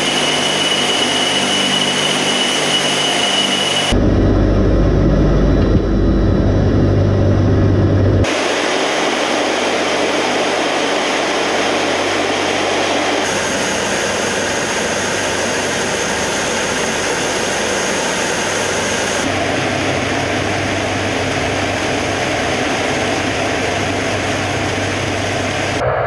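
Tu-95MS bomber's turboprop engines and contra-rotating propellers droning steadily, heard inside the aircraft in flight, with a thin steady whine at first. About four seconds in, a deeper, louder rumble takes over for about four seconds, then the sound settles into an even rushing drone.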